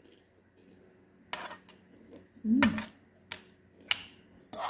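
Metal spoon clinking and scraping against a ceramic plate while scooping rice, about six separate short strokes. A brief hummed 'mm' comes about halfway through.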